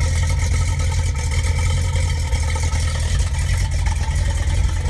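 A 1985 Chevy C10's 350 small-block V8, bored 60 over, idling steadily with a deep, even rumble. It is not yet fully warmed up.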